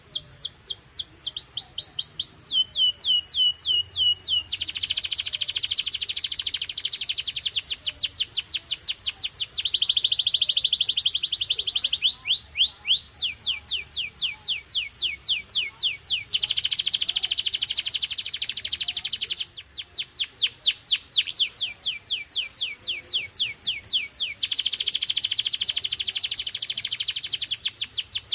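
Canary singing a long continuous song of rapid trills. Phrases of quick, repeated falling notes alternate every few seconds with very fast, dense rolls, all high-pitched.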